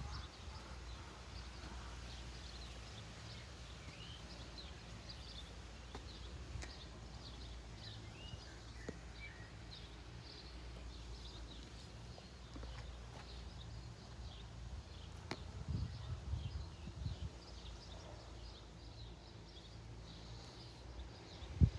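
Small birds chirping over and over, short high notes, over a low rumble of wind or handling noise, with a few soft low thumps about three-quarters of the way through.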